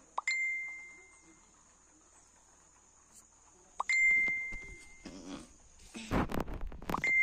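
A small bell rings three times, about three and a half seconds apart: each a clear ping that fades over about a second. Just before the last ring, a rumbling rustle hits the microphone.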